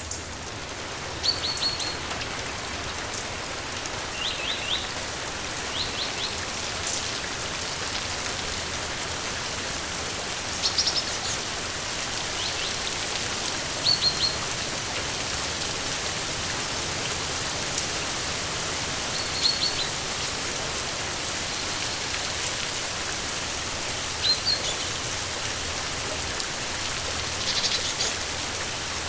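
Steady rain falling, with a small songbird giving short runs of three or four quick high chirps every few seconds.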